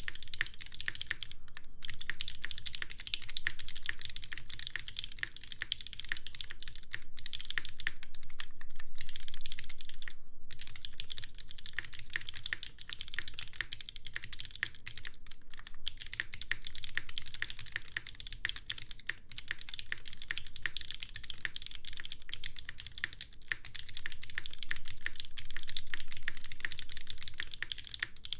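Continuous typing on a Qneko 60% mechanical keyboard: lubed, heavily broken-in Cherry MX Red linear switches in an aluminium plate on a gummy O-ring mount, with GMK ABS keycaps and Cherry clip-in stabilizers. A steady stream of key clacks with a few brief pauses.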